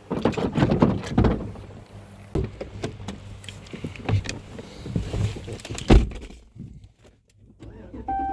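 Knocks and clatter of someone getting into a vehicle, with a vehicle door slamming shut about six seconds in; a steady beep starts near the end.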